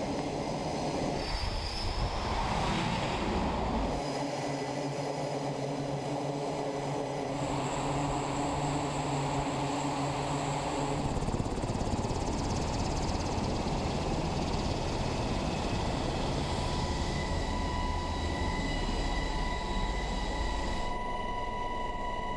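Steady engine and rotor noise of an MH-60S Sea Hawk helicopter, heard beside the running aircraft and then inside its cabin in flight, with a steady high turbine whine in the later part. The noise changes abruptly several times.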